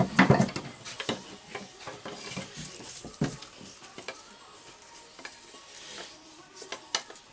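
Plywood pads and a cordless drill being handled and set into a bench vise: scattered light knocks, clicks and scraping, with a sharper click near the end.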